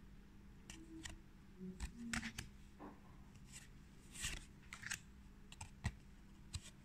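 Magic: The Gathering cards handled in a stack: soft clicks and a few short swishes as cards are slid against each other and moved from front to back.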